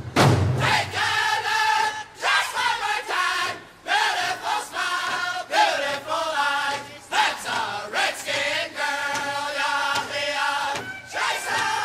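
Soundtrack music: a song with a group of voices singing together in a chant-like chorus.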